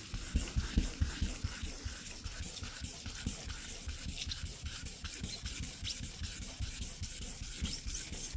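Car paint being wet sanded by hand: a fine-grit sanding pad scrubbed back and forth in quick strokes over wet clear coat, a steady gritty rubbing that takes out fine scratches.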